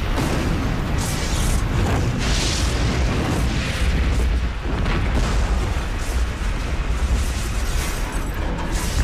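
Loud, continuous rumbling roar of an aircraft crashing and exploding, with repeated noisy surges over a deep rumble.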